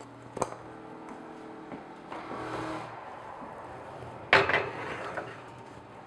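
Metal muffin pan knocking onto a wall oven's wire rack as it is slid in, one loud clank with a short ring about four seconds in, after a lighter click near the start. A steady hum runs underneath, from the oven's convection fan.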